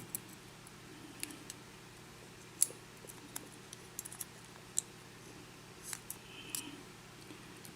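Small, sharp metallic clicks and taps at irregular intervals, the sharpest about two and a half seconds in: the pins and springs of a disassembled pin-tumbler lock being handled and picked out with small tools.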